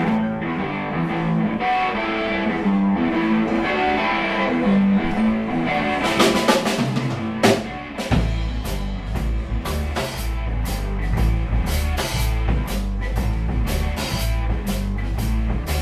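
Live band with electric guitars and drum kit: an electric guitar plays the intro alone, a drum fill comes in about six seconds in, and at about eight seconds the drums and low end kick in and the full band plays on.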